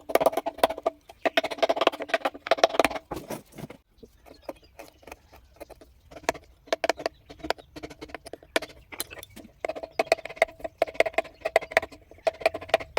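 V-chisel cutting into wood by hand: a rapid, uneven run of small clicks and scraping strokes as chips are cut. Dense at the start, sparser in the middle, then busy again near the end.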